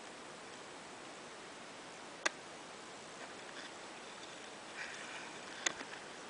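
Steady hiss of water around a paddled kayak, broken by two sharp clicks about three and a half seconds apart, with faint small ticks just before the second.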